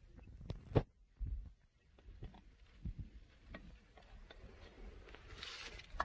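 Faint handling of a metal thermos: a sharp click under a second in, a few light knocks and taps, and a short hiss near the end.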